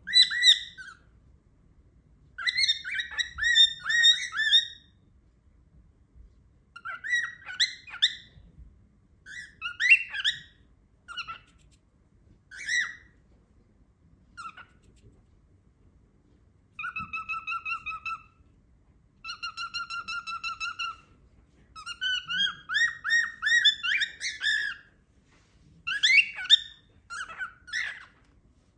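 A cockatiel calling in a string of short, pitched chirps and whistles, in bursts with pauses between, and two steady buzzing trills past the middle. The owner wonders whether the calls are an attempt at saying a word.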